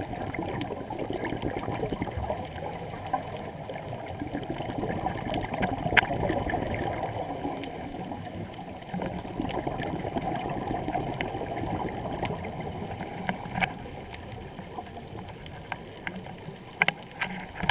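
Steady rushing and splashing of water, with a few sharp knocks, the loudest about six seconds in and a cluster near the end.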